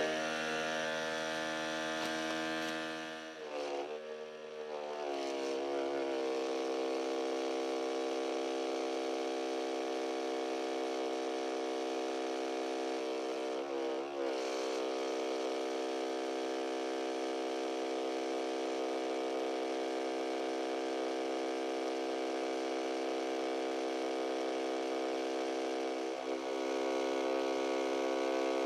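Small electric pump of a battery-powered pesticide sprayer running, a steady motor hum. Its pitch dips and wavers about four seconds in, then settles and holds steady, with a brief waver again about halfway through.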